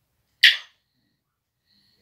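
African grey parrot giving one short, sharp, harsh sound about half a second in.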